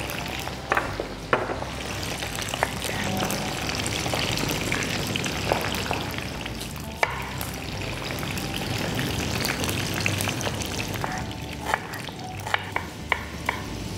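Frozen potato fries deep-frying in hot oil in a kadai, a steady sizzle. Knife strokes tap on a wooden chopping board as spring onion bulbs are cut, with a quick run of chops near the end.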